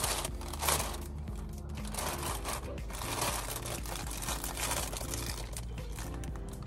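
Clear plastic flower wrapping crinkling in irregular bursts as a bouquet is handled and adjusted.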